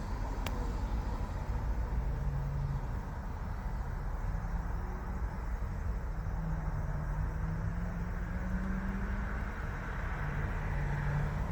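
Car engine idling steadily, a low hum. There is a single sharp click about half a second in.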